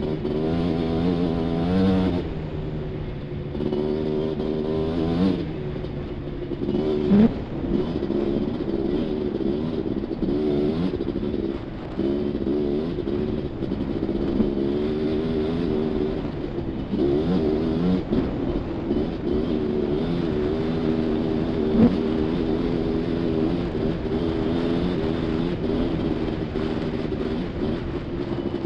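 Suzuki LT500R Quadzilla's two-stroke single-cylinder engine running under load while riding, its pitch rising and falling with the throttle and easing off several times. A couple of sharp knocks stand out, one about a quarter of the way in and another about three quarters through.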